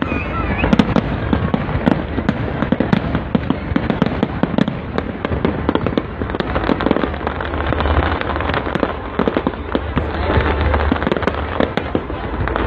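Fireworks display: a continuous, dense barrage of bangs and crackles from many shells bursting at once, over a steady low rumble.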